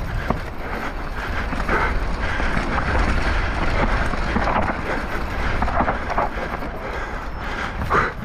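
Wind buffeting the microphone in a steady low rumble, with irregular brief louder patches over it.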